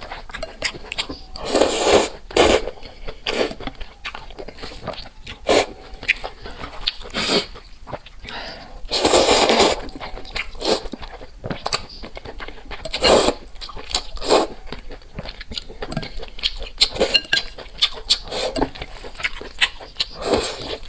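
Close-miked eating sounds: irregular chewing, crunching and wet mouth clicks, with several louder bursts of about a second.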